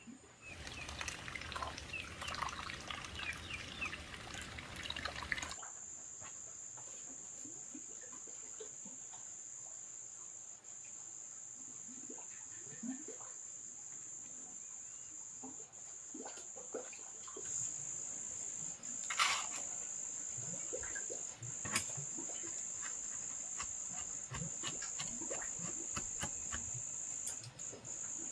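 Insects trilling: a high, steady, unbroken drone that sets in about five seconds in and carries on. Before it comes a louder rustling noise, and later two sharp knocks.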